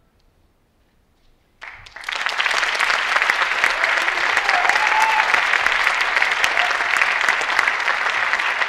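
Audience applauding, starting suddenly about a second and a half in after a near-silent pause, then holding steady and loud.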